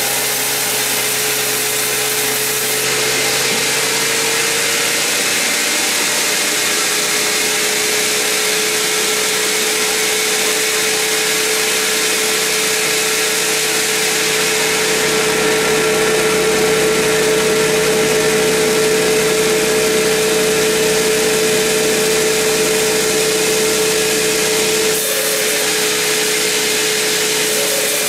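Large log band saw running as it cuts through a big mahogany log: a steady machine hum and whine under the hiss of the blade in the wood. The sound shifts about three seconds in and again near the end.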